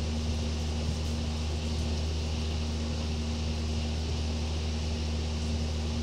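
Steady low hum with a hiss over it, like a fan or motor running.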